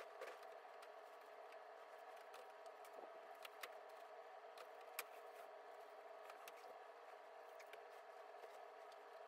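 Near silence: a steady faint room hum, with a few faint clicks and rustles from handling a box spring's fabric cover. The sharpest click comes about five seconds in.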